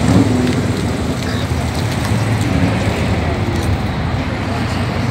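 Steady low outdoor rumble with a light hiss over it, without any distinct event.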